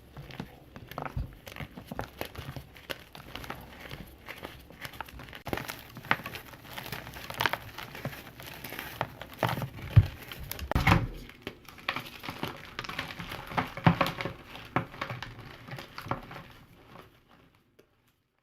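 Blocks of crunchy powder being crushed and crumbled by hand: a dense run of irregular crackles and crunches, with a few louder crunches, fading out near the end.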